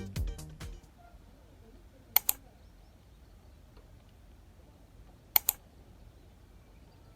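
Background music fading out, then two sharp double clicks about three seconds apart over a faint steady background.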